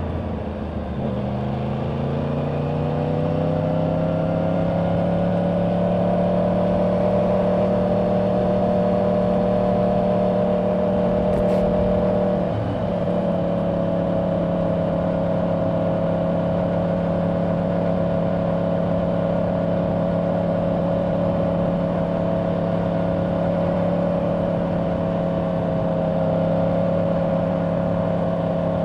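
Yamaha R1's crossplane inline-four engine through its stock exhaust, heard from the rider's seat with wind rushing past. The engine note drops at the start, then climbs steadily for a few seconds as the bike accelerates. It holds a steady cruising note, with one brief dip about twelve seconds in.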